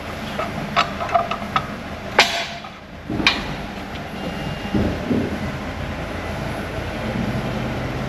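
Metal parts and tools being handled on a workbench: a run of light clinks, then a sharp metallic knock about two seconds in with a brief hiss after it and another knock a second later, over a steady low hum.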